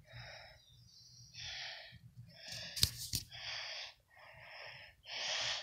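A person breathing hard close to the microphone, one noisy breath about every second, laboured because of breathing problems. A couple of sharp clicks come about three seconds in.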